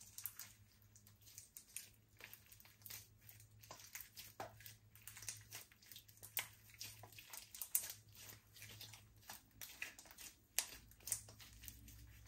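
Slime being mixed and squished by hand: a faint, irregular stream of small clicks, pops and crackles.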